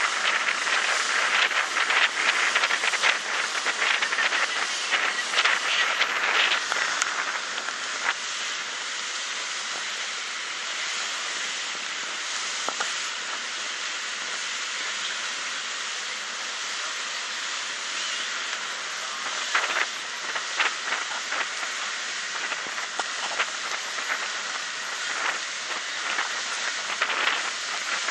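Steady rushing noise aboard a small river ferry under way on choppy water. Crackly gusts come in the first several seconds and again in the later part.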